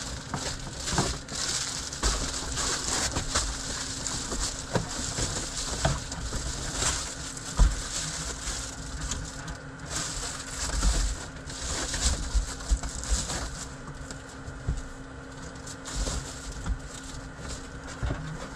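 Crinkling and crackling of reflective foil-bubble insulated window covers being handled and pressed into place, in uneven bursts of small crackles.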